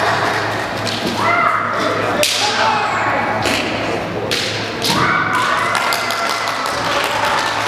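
Kendo fencers shouting kiai: two long held yells, one starting about a second in and another past the middle, over sharp clacks of bamboo shinai and thuds of bare feet stamping on the wooden floor.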